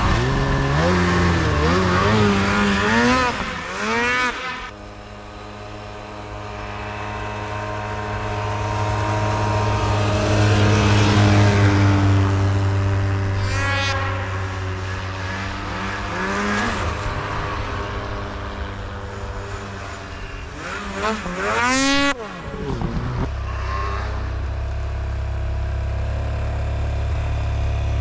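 Engine of a 2008 Polaris Sportsman ATV fitted with snow tracks, being ridden. The revs rise and fall over the first few seconds, then it settles to a steady run with a few brief changes. It revs up sharply about 21 seconds in, then drops suddenly to a lower steady run.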